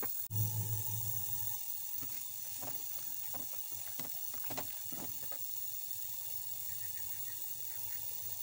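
Steady hiss from a pot of vegetables heating in water on the stove. A low hum runs for the first second or so, and there are a few short knocks between about 2.5 and 5 seconds in as a silicone spatula stirs potato sticks against the aluminium pot.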